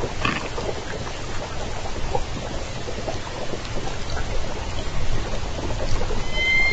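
Underwater hiss on a hydrophone with a few faint clicks; near the end a southern resident killer whale gives a pitched call holding a couple of steady tones.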